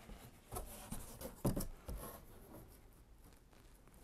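Cardboard box flap being handled and lifted open: a few short scrapes and taps in the first two seconds, the loudest about a second and a half in, then faint rustling.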